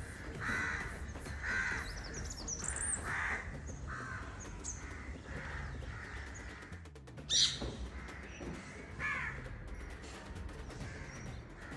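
Crows cawing again and again, with a few high chirps from smaller birds; one loud sharp chirp stands out about seven seconds in.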